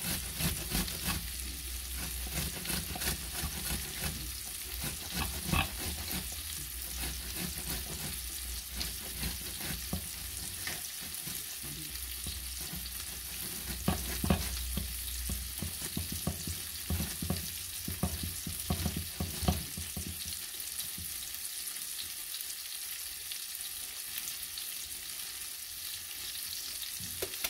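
Ripe tomatoes being grated on a stainless-steel box grater: many quick, wet rasping strokes over a steady hiss. The strokes thin out over the last several seconds.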